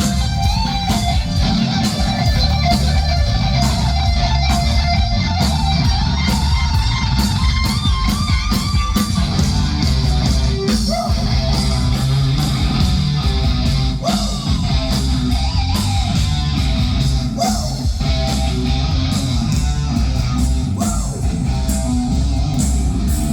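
Live rock band playing, led by electric guitar over a heavy bass and a steady beat.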